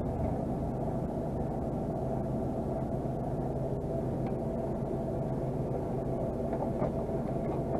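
Mercedes-Benz Actros 480's diesel engine running steadily, heard from inside the cab as a low, even hum, with a couple of faint clicks near the end.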